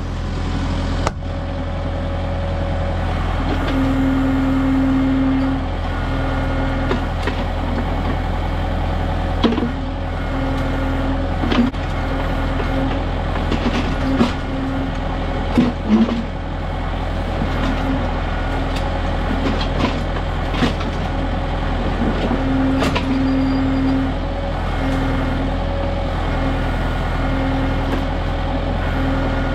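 Kubota M6060 tractor's diesel engine running steadily while it works the LW-6 backhoe. A hydraulic whine comes and goes as the controls are worked, and the bucket knocks sharply against rocks a few times, most loudly about a third of the way in.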